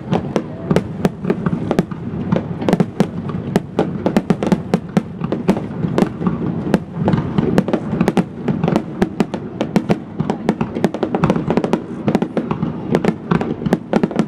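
Fireworks display: aerial shells bursting over the sea in rapid succession, several sharp bangs a second over a continuous rumble.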